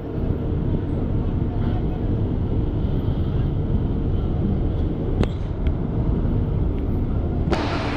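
A coach bus's engine rumbles steadily and low as the bus creeps across a ferry pontoon and down its ramp. A single sharp click comes about five seconds in, and a rushing hiss rises suddenly near the end.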